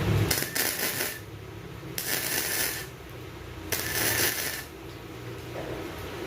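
Electric arc welding on steel channel: the arc crackles in three short bursts of about a second each, with pauses between them.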